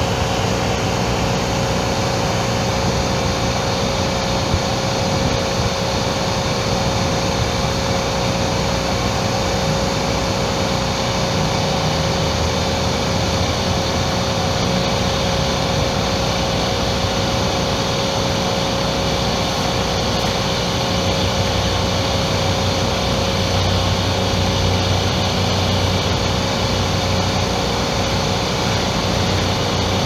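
Shop vac running steadily at full suction, with a steady whine over a low hum; its smooth sawdust-collection hose is sucking in a swarm of honeybees. The low hum grows a little stronger near the end.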